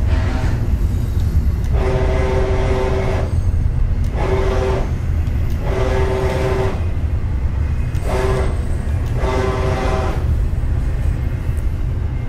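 CNC plasma table's stepper motors whining as the gantry and torch are jogged in five short moves, each a steady pitched whine that starts and stops abruptly, over a steady low rumble.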